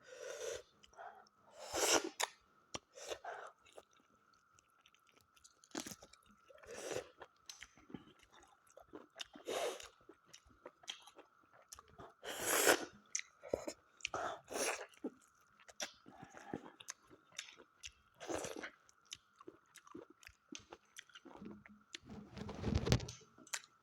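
Close-up chewing and crunching of smoked mutton, in irregular bites and chews with short pauses between them.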